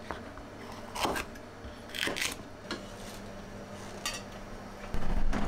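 Kitchen knife cutting green pepper on a wooden cutting board, a few separate strokes about a second apart. Then a light clatter as the pieces go into a white enamel tray, and a low thump near the end.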